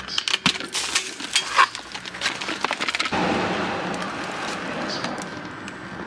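Plastic clicks and knocks from a Dyson cordless stick vacuum's clear dust bin being unlatched and knocked to empty it over a rubbish bin. About three seconds in, a steady rustling noise sets in suddenly and slowly fades.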